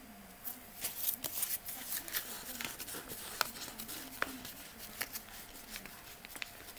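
A thick stack of paper banknotes riffled and flicked through by hand close to the microphone: a run of quick, irregular crisp flicks and rustles starting about half a second in.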